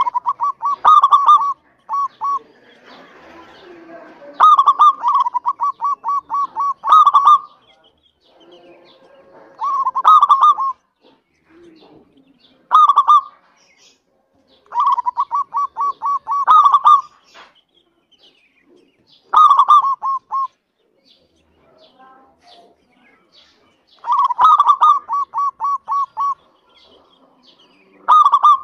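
Zebra dove (perkutut) cooing: about nine bouts of rapid staccato notes, each from under a second to a few seconds long, with short pauses between.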